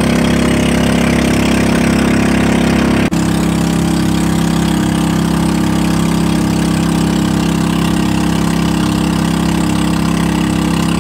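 Small boat's gasoline engine running steadily, loud and close, with a momentary drop about three seconds in.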